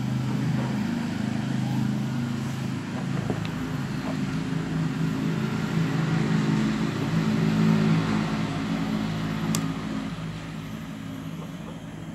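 An engine running steadily. Its hum swells slightly in the middle and eases off near the end, with a few faint clicks over it.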